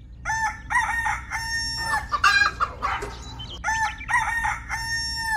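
Chickens calling: a run of short pitched calls, a brief pause about three seconds in, then a second run.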